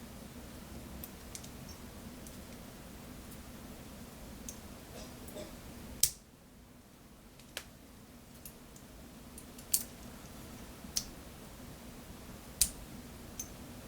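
Scattered sharp metallic clicks and ticks of tools working a DOM ix KG high-security lock while trying to shim it open, the loudest about six seconds in, over a faint steady hum.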